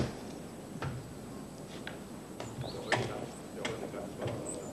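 A car door shuts right at the start, then a few scattered knocks and clicks as people get out of the car, with small birds giving short chirps.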